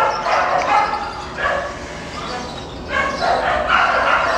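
A caged dog barking repeatedly, in about five loud outbursts.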